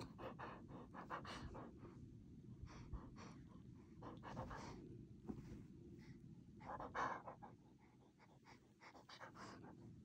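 A dog mouthing and gnawing at a plush toy while it breathes, giving faint, irregular short huffs and mouth sounds, a little louder about seven seconds in.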